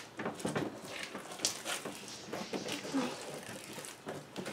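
Floam slime, glue packed with styrofoam beads, crackling and clicking in quick irregular snaps as it is pulled and peeled away from a clear plastic tub.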